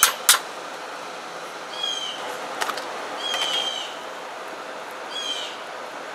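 A bird calling, a short pitched call repeated three times about every one and a half to two seconds. At the very start, two sharp clanks of a metal spoon against the cast-iron pot are the loudest sounds, with another light clink a little later.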